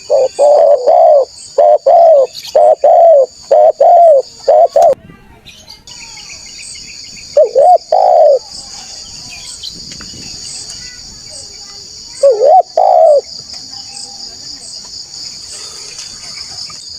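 Spotted dove cooing: a quick run of repeated coos in the first five seconds, then two short coo phrases about eight and thirteen seconds in. A steady high-pitched insect drone joins about six seconds in.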